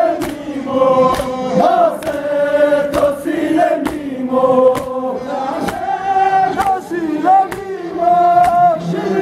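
A crowd of men chanting a mourning lament (nauha) in unison, with sharp chest-beating slaps (matam) keeping the beat about once a second.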